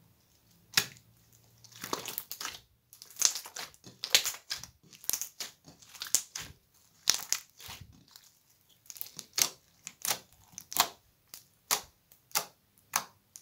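Clear slime full of beads and sequins being squeezed and kneaded by hand: a run of short, sharp sticky pops and crunches, about one or two a second, starting about a second in.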